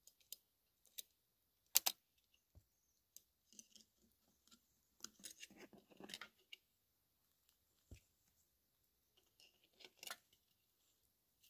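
Hands working an 8x10 large format view camera, making scattered sharp mechanical clicks: a loud one about two seconds in, a cluster of small clicks and handling rustle around five to six seconds, and another click near ten seconds.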